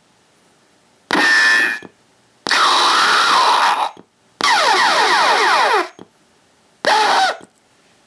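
IR-XX03 laser tag sound effects board playing its sampled sound effects through a speaker, one short effect from each audio group in turn as it cycles in audio-group select mode: a ricochet, a zombie sound, a video-game effect of rapid falling sweeps and a short scream. There are four separate bursts about a second apart.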